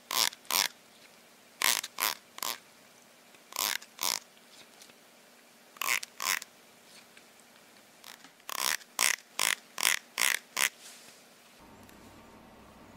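Teeth of a plastic hair comb strummed with a finger, giving short raspy bursts, mostly in pairs, about fifteen in all.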